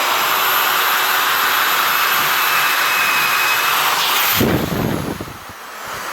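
Electric drill boring down through a wooden log with a long 1/2-inch electrician's bit. The motor whines at a steady speed for about four seconds, then is let off and winds down with a falling whine, with a brief rough rumble as it slows.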